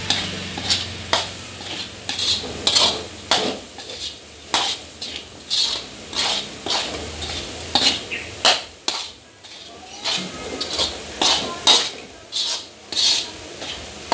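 Metal spatula scraping and knocking against a wok while stirring crumbled oncom, in quick repeated strokes about two a second.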